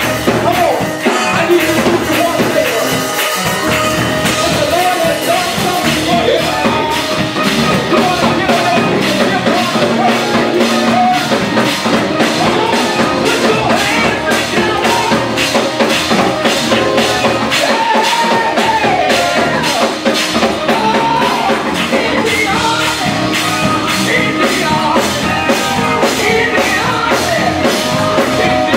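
Live gospel praise-and-worship music: a lead singer over a church band with drums, with a steady beat of about two strokes a second from about six seconds in.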